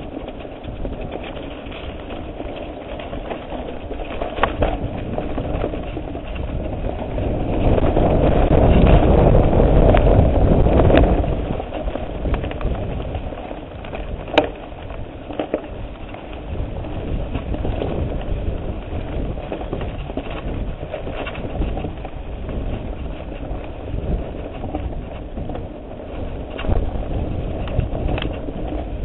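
A mountain bike rolling over a dirt and rocky trail, heard through a handlebar-mounted camera: a steady rumble and rattle, with several sharp knocks as the bike goes over bumps. The rumble grows louder for a few seconds about a third of the way in.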